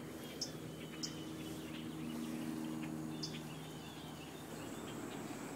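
Faint woodland ambience: scattered bird chirps over a steady low hum that dies away about three and a half seconds in, with a few sharp light ticks.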